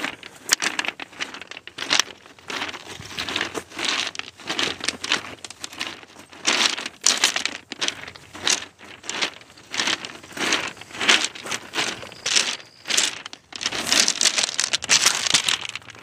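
Footsteps on a beach of loose rounded pebbles: the stones crunch and grind under each step at a steady walking pace.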